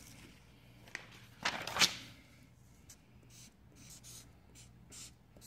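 A quiet scrape as a sheet of paper is handled on a stone counter, then a marker pen scratching across the paper in a run of short strokes as letters are written.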